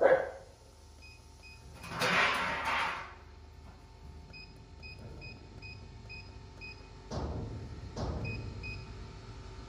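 Digital control panel of a Henny Penny electric pressure fryer beeping in short, quick pips, about three a second, as a key is held to run the hours-of-use setting down toward zero. A brief hiss about two seconds in is louder than the beeps.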